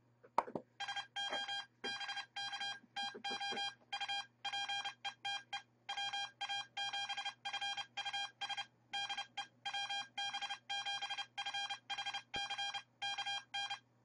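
Morse code from the Arduino's ham radio project: a single beeping tone of about 800 Hz keyed on and off in short and long elements, spelling out a CW message. The encoder knob clicks once as it is pressed, just before the code starts.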